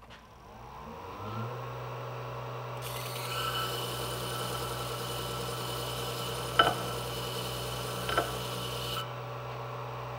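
Disc sander's electric motor switched on and winding up to speed, then running with a steady hum. From about three seconds in, a steel knife blade is held against the spinning abrasive disc, grinding with a hiss for about six seconds and two sharp knocks, before the blade is lifted off and the motor runs on. The blade's flat is being sanded until a low spot left by the belt grinder blends in.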